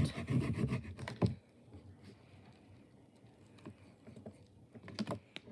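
A small blade scraping shavings off a wax crayon in quick, scratchy strokes for about the first second, then a few light clicks and taps.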